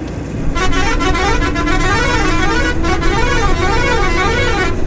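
A vehicle's musical horn sounding a warbling tune that rises and falls about twice a second for about four seconds, starting about half a second in and cutting off just before the end, over steady engine and road noise.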